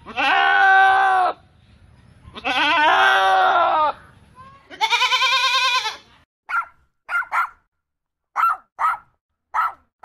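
Goat bleating: three long, wavering bleats in the first half. After that, a string of short, high yips, typical of a puppy.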